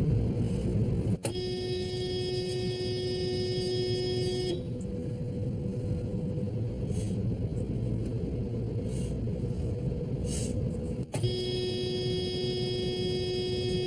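Car horn sounding in two long steady blasts of about three seconds each, the first about a second in and the second near the end, over the low engine and road rumble inside the cabin. The driver says the horn is broken.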